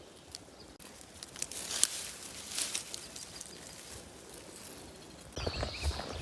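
Faint rustling and crackling of movement through wet forest undergrowth, with scattered small clicks. About five seconds in, a louder sound takes over, with a low uneven thudding and a brief high chirp.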